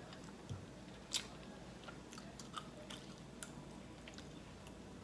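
A person chewing food close to the microphone, with soft scattered clicks and one sharper click about a second in.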